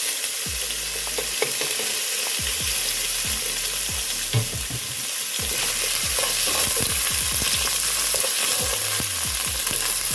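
Sausage sizzling as it browns in hot oil in a pot, stirred with frequent short scrapes and knocks of the utensil against the pot.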